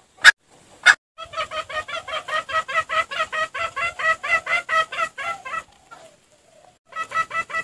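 Two sharp clicks, then a junglefowl's rapid clucking, about four or five clucks a second, played as a lure call. The clucking breaks off for about a second and a half near the end, then starts again.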